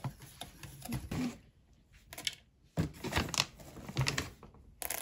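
Kitchen clatter: a whisk clicking against a stainless steel bowl as eggs are beaten, then, after a short lull, chocolate pieces clattering into a plastic measuring cup in irregular clicks.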